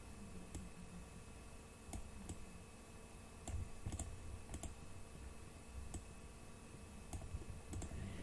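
Faint computer mouse clicks, a dozen or so at irregular intervals, over a faint steady hum.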